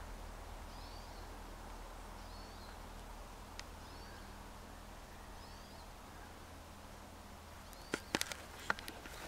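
A small bird calling in the distance, repeating a short high chirp about every second and a half over faint outdoor background noise with a low hum. Near the end come a few sharp clicks.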